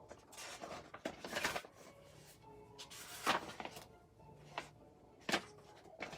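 Household handling noises in a small room: several brief rustles and knocks, the loudest about a second in, about three seconds in and about five seconds in.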